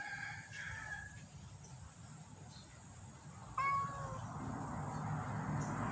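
A cat meowing: a faint call at the start, then a clear, slightly falling meow about three and a half seconds in. A rushing background noise builds toward the end.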